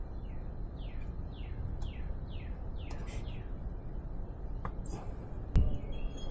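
A bird singing a run of about eight quick down-slurred whistled notes, coming closer together toward the end, over a steady low outdoor rumble. A single sharp knock comes near the end, louder than the song.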